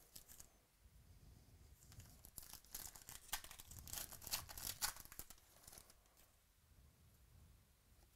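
A 2017 Chronicles baseball card pack's wrapper being torn open and crinkled by hand, a burst of crackling that runs from about two seconds in to about six seconds in.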